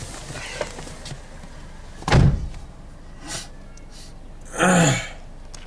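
A car door thudding shut about two seconds in. A louder, short sound that falls in pitch follows near the end.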